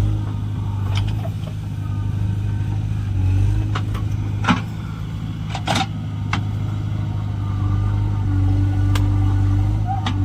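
Heavy diesel engine of a backhoe loader or farm tractor running steadily at a constant speed, with a few short sharp knocks cutting through it.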